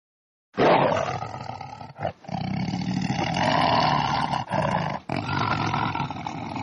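Tiger roaring: long, rough, loud calls starting about half a second in, broken by three short pauses.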